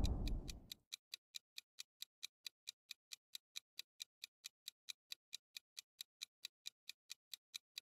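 Countdown-timer clock-ticking sound effect: faint, quick, even ticks at about five a second. A rush of noise fades out in the first second before the ticking.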